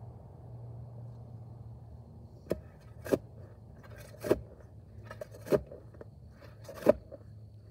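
Long-handled shovel stabbed repeatedly into hard clay soil: five sharp chopping thuds roughly a second apart, starting about two and a half seconds in, the last one the loudest.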